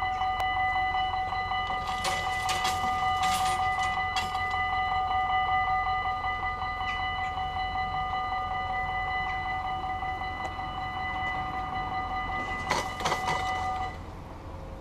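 Dutch automatic level-crossing bells ringing rapidly and steadily while the barrier arms lower, then cutting off suddenly as the barriers come down. Short clattering bursts come about two seconds in and again just before the bells stop.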